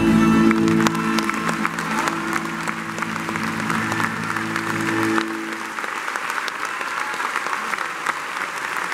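Audience applause, with dense clapping over the music's final held chord. The chord dies away about five seconds in, leaving the applause alone.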